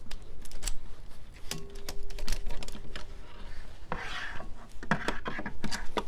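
A steel bike lock being handled with gloved hands at the bike frame: irregular metal clicks and clacks with rubbing and scraping.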